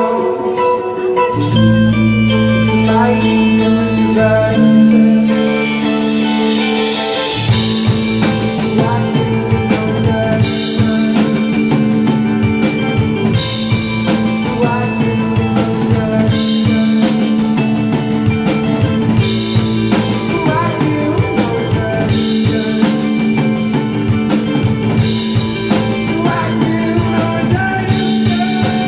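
Live rock band playing: low held notes at first, then a cymbal swell and the drum kit coming in about seven seconds in, with crash cymbal hits every three seconds or so after that.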